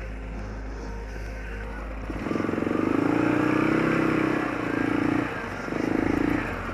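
Arctic Cat 650 H1 ATV's single-cylinder four-stroke engine, freshly rebuilt and on its break-in run, running steadily at low throttle. About two seconds in it is throttled up and pulls, its pitch rising and then easing, with two shorter throttle surges near the end.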